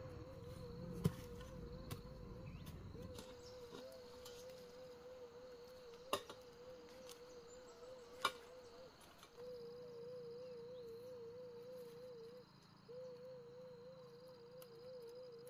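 Steady, warbling insect drone that breaks off briefly a few times, with three sharp knocks of wooden poles about one, six and eight seconds in.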